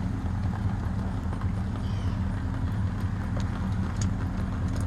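Volvo BL60 loader's diesel engine making a steady, low, rhythmic clatter while air is bled from its fuel line and clear diesel comes through.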